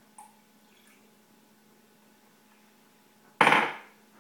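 A glass measuring cup set down hard on a kitchen countertop: one sudden loud clunk about three and a half seconds in, dying away within half a second, after a few faint clicks of the plastic test tube against the cup.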